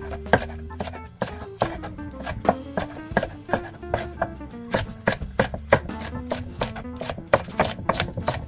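Chef's knife slicing bell pepper into strips on a wooden cutting board: an uneven run of quick knife knocks against the board, about three a second, over background music.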